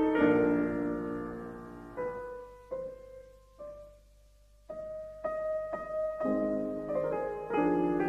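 Slow background piano music: held chords and single notes that die away, thinning to a near pause about halfway through before the chords come back.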